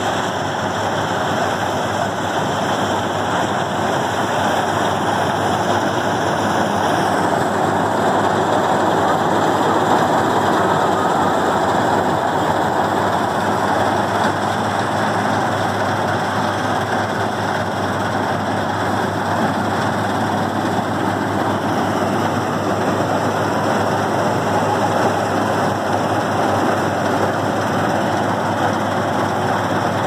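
Preet 987 self-propelled combine harvester running under load while harvesting standing grain: a loud, steady engine and machinery drone that holds level throughout.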